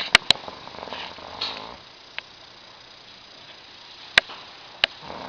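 A man snoring: a rasping snore breath from about half a second in lasting just over a second, a quieter gap, then the next snore starting near the end, with a few sharp clicks along the way.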